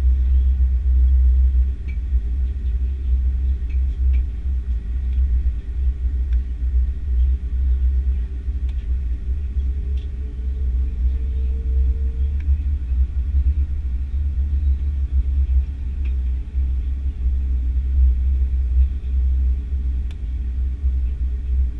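Steady low rumble inside the cabin of an Airbus A330-300 taxiing, with a brief hum rising slightly in pitch about halfway through.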